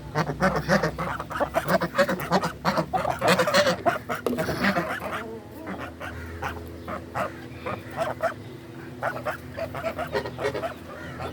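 Poultry calling: a dense run of rapid calls for about four seconds, then sparser single calls.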